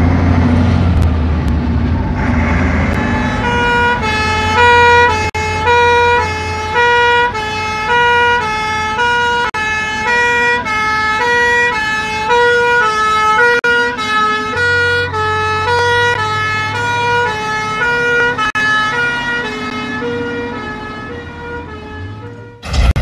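Fire engine's two-tone siren sounding, alternating between a high and a low note about once a second, over the low rumble of the vehicle's engine. The siren fades near the end and is cut off by a sudden burst of noise.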